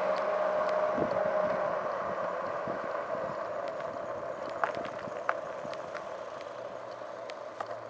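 Motor vehicle engine and road noise, steady and fading gradually, with a few light clicks about halfway through.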